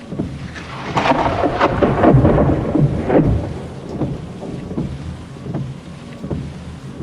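Rain pattering on a car's body, heard from inside the car, with scattered heavier drops ticking. A loud clap of thunder breaks in about a second in and rumbles for two or three seconds before fading back under the rain.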